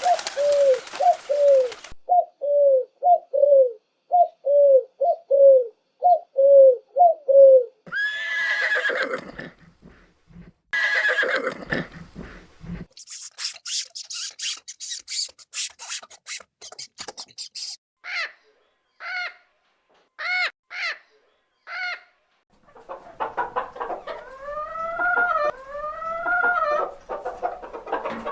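A string of different animal and bird calls, one after another. First comes a run of about a dozen short, evenly repeated low calls, roughly two a second. Then there are two longer calls, a fast high chittering, a series of short calls, and several rising-and-falling arching calls near the end.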